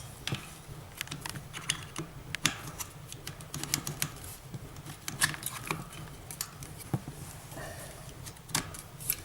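Scattered sharp clicks and light rattling of plastic and metal parts as a satellite LNB and its holder are handled and pushed onto the pegs of the dish arm.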